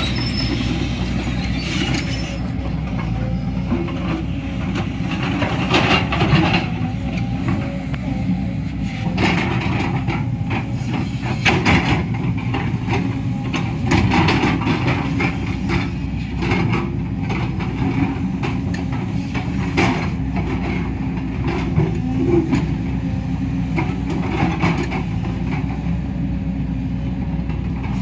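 A JCB tracked excavator's diesel engine and hydraulics run steadily while the arm swings and the bucket digs into a rocky bank, with repeated knocks and scrapes of the steel bucket on stone and earth.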